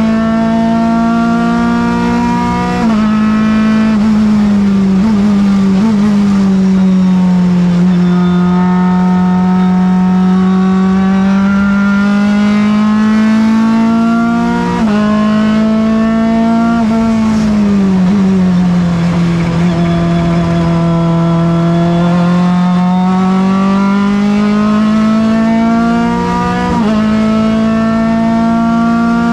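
NP01 Evo prototype race car's engine at high revs under load, heard from the cockpit. Its pitch climbs slowly through each gear, with several gear changes and a falling dip in revs about two-thirds of the way through as the car slows for a corner.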